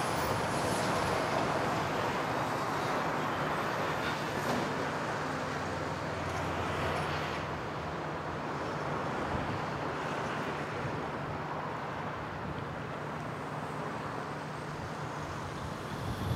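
Steady road traffic noise: a continuous low vehicle drone under an even rushing hiss.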